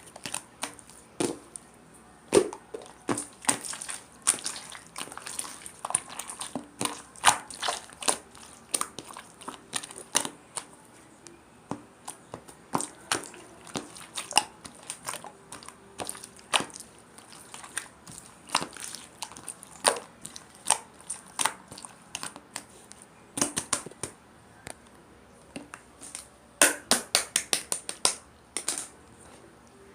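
Irregular crunching and crinkling: many short, sharp crackles at an uneven pace, with quick flurries of them near the end.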